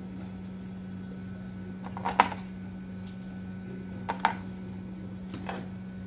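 A few light clicks from handling on a workbench, the sharpest about two seconds in and two fainter ones later, over a steady low electrical hum.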